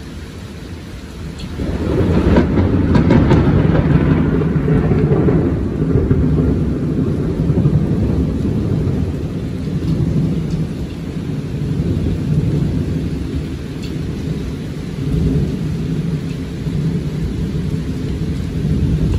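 Thunder breaks about two seconds in, crackling sharply for a few seconds, then rolls on as a long low rumble that swells and fades, over the steady hiss of heavy rain.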